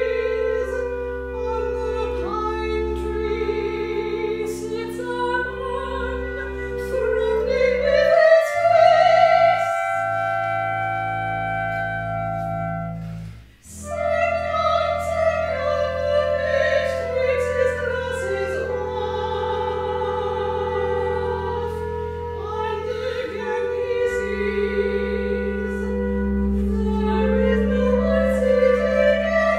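Contemporary chamber music: a soprano sings sustained notes over piccolo, clarinet and a low double-bass drone, with a brief break about thirteen seconds in.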